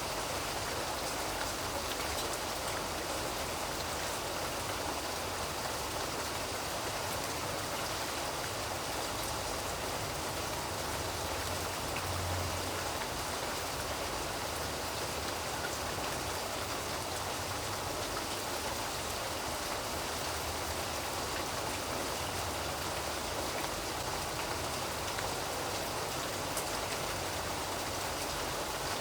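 Steady rain falling: an even, unbroken hiss of many drops at a constant level.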